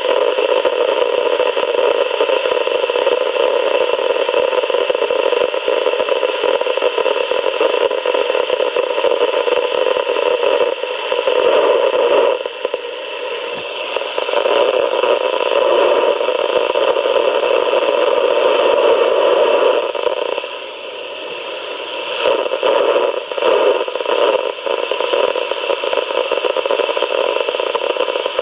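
Steady radio static hiss from a weather radio receiver during dead air on the broadcast, with no programme audio. The hiss dips in level briefly about halfway through and again about two-thirds through, with a few faint crackles.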